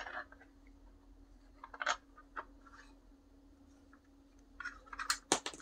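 Light clicks and taps of 3D-printed plastic grip parts being handled and pressed together, a couple of single clicks about two seconds in and a quick cluster near the end, over a faint steady hum.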